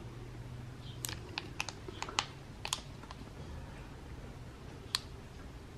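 Slime tube sealant's plastic squeeze bottle crackling as it is squeezed to push sealant through its hose into the tyre valve: a quick run of sharp light clicks about a second in, and one more click near the end.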